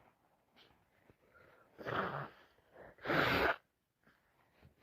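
A woman sneezing with a cold turned sinus infection: two short bursts about a second apart, the second louder and sharper.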